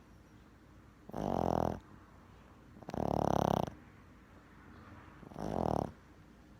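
A napping animal, most likely a pet, snoring: three snores about two seconds apart, each under a second long.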